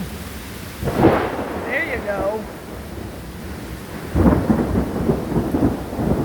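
Thunder over steady rain from close lightning strikes: a sudden loud crack about a second in, then a longer rumbling peal from about four seconds in.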